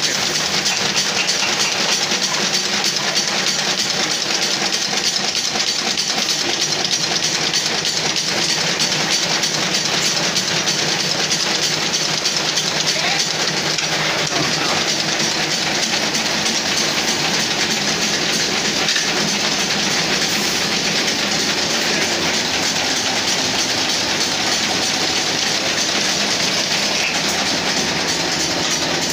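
Brush tufting machine running at speed, a fast, even mechanical clatter as it punches bristle tufts into a plastic broom head.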